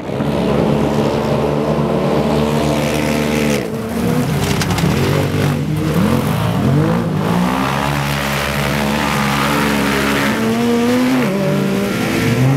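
Engines of several side-by-side off-road race buggies revving together as they race past. Their overlapping engine notes rise and fall repeatedly in pitch as the drivers accelerate and back off.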